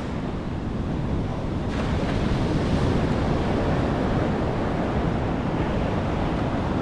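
Heavy, rough surf breaking and washing up the beach, with wind buffeting the microphone.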